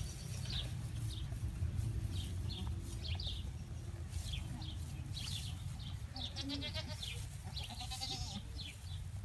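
Alpine dairy goats bleating faintly in the pen, over a steady low rumble, with short high chirps scattered through.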